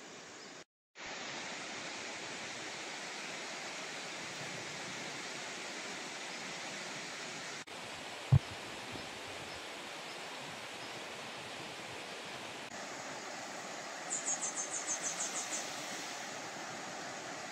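Steady rushing of water, with one sharp low thump a little past the middle and a quick run of about ten high chirps near the end.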